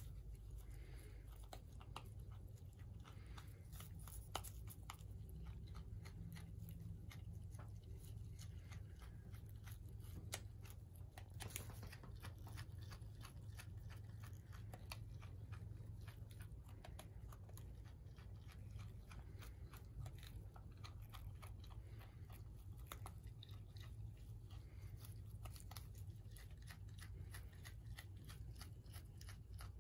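Parma wallaby chewing pea shoots, with many small crunches and snips as it bites and tears off the stems. It is faint, over a steady low hum.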